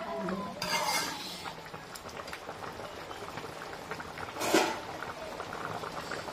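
Metal ladle stirring and scraping through chicken curry in an aluminium kadai, with the curry bubbling and crackling underneath. A single sharp metal clink about four and a half seconds in.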